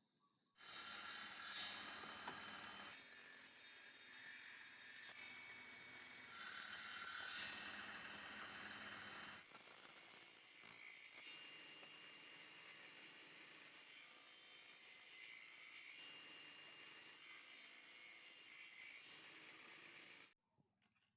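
Wood being worked with hand tools: scraping and rubbing, in a series of short segments that change abruptly every few seconds, stopping suddenly near the end.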